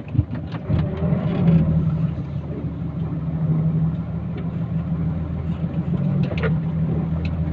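Hino Mega dump truck's J07E turbo diesel engine idling steadily, a low even hum heard from inside the cab.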